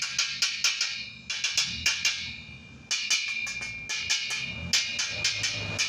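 Chipping hammer tapping slag off the welded joints of a thin steel tube frame: sharp metallic taps with a ringing tone. About three seconds in, an arc is struck and a stick weld with a 6013 rod crackles steadily, with sharp snaps.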